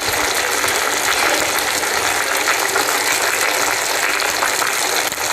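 Chicken in a covered clay pot lined with banana leaf sizzling and bubbling steadily with fine crackles over a high flame, cooking in its own released juices with no water added.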